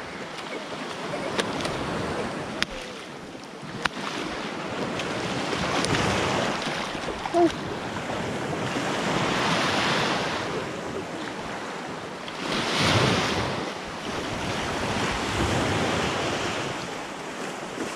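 Small surf waves breaking and washing up the sand in repeated swells, with wind buffeting the microphone. A few sharp clicks come in the first few seconds.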